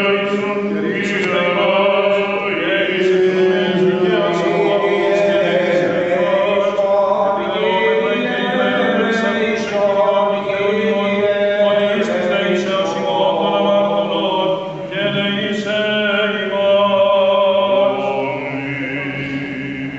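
Greek Orthodox Byzantine chant: voices singing a slow hymn in long held notes over a steady low drone, tapering off near the end.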